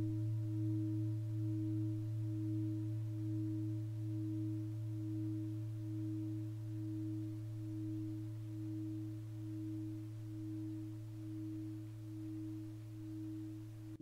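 Tibetan bell ringing in a long, deep sustained tone with a slow, even wobble, gradually fading.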